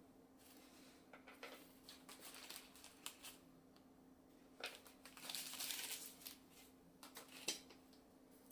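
Faint handling noises: scattered light clicks and knocks, with a stretch of crinkly rustling about five to six seconds in, over a faint steady hum.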